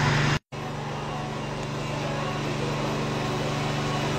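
Steady electric motor hum with a low, even pitch. It cuts out for a split second about half a second in, then carries on a little quieter.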